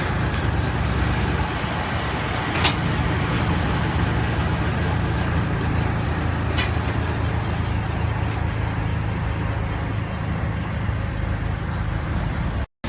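Drum wood chipper running steadily with a low engine hum, with two sharp knocks about two and a half and six and a half seconds in. The sound cuts out abruptly near the end.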